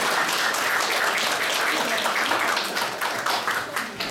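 Audience applauding, many hands clapping, thinning out near the end.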